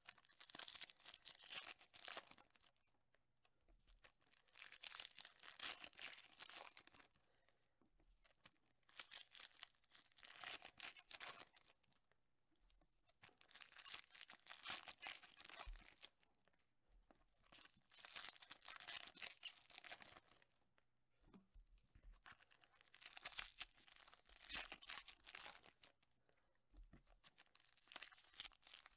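Foil wrappers of Topps Chrome trading-card packs being torn open and crinkled by hand, in about seven crackly stretches a few seconds apart.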